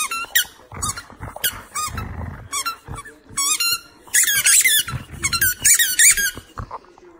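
Squeaky tennis balls being chomped by two dogs: runs of rapid high squeaks, each bending up and down in pitch, coming in bursts that are busiest from about four seconds in.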